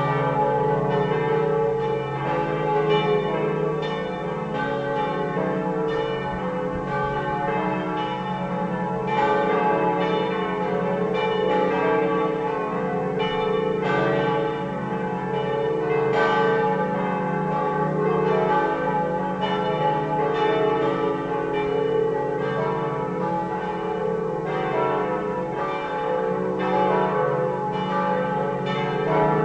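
Several swinging church bells from a five-bell ring cast or recast by the Pruneri foundry of Grosio in 1901 (D, E, F sharp, G and A) pealing together. Their overlapping strikes follow each other without a break and leave a dense ringing hum.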